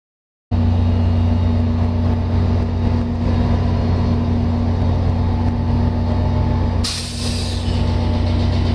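VIA Rail F40PH-2 diesel locomotives idling with a loud, steady low drone, starting abruptly half a second in. About seven seconds in, a sharp hiss of released air cuts in and fades.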